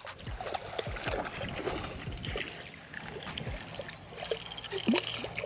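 Water lapping and slapping against a fishing boat's hull in short, irregular splashes, with one louder, sharper splash about five seconds in.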